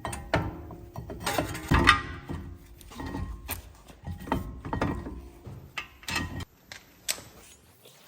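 Irregular metallic clinks, knocks and clicks of hand tools against metal parts, some with a brief ring, loudest about two seconds in and thinning to lighter taps near the end.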